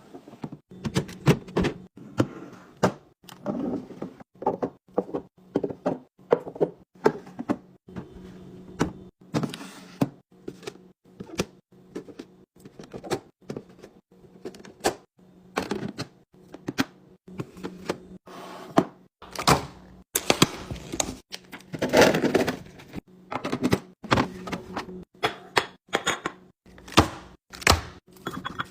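Containers and food items being handled in a refrigerator, knocking, clattering and being set down in quick irregular succession, with a steady low hum underneath.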